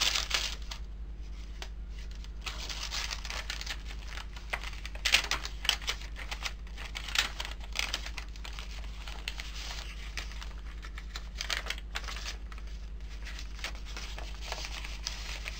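Paper pages of a handmade journal being turned and handled, rustling and crinkling in irregular bursts over a steady low hum.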